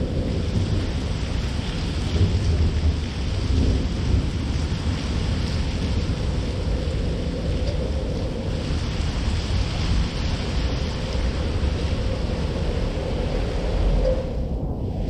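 Steady rain falling on a city street, an even hiss over a low rumble, with a faint steady hum underneath.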